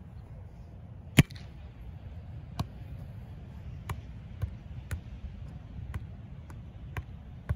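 A volleyball struck with a loud, sharp slap about a second in, followed by a string of lighter slaps and taps as the ball is handled, over a steady low rumble of wind.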